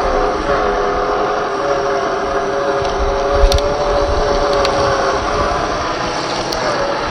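Traxxas TRX-4 1/10 scale RC crawler's electric motor and gearbox whining steadily, the pitch shifting slightly with throttle, with a sharp knock about three and a half seconds in and a few lighter clicks later.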